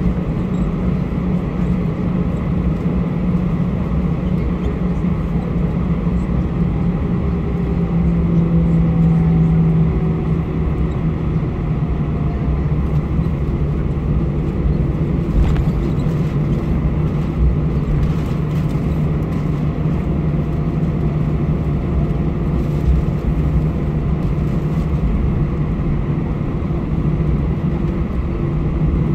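Airbus A320-214 taxiing, heard from inside the cabin beside the wing: its CFM56-5B turbofan engines run at taxi power as a steady low hum and rumble. The hum swells briefly about eight seconds in.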